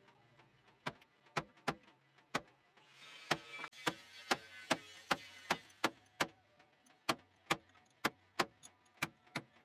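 Sharp knocks, about two to three a second, from blows driving the old wooden handle out of a small steel chasing-hammer head. A faint hiss runs under the knocks for a few seconds in the middle.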